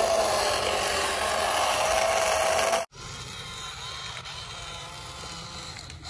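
A small motor whining steadily over a loud rushing noise, cut off abruptly about three seconds in; a much quieter hum follows.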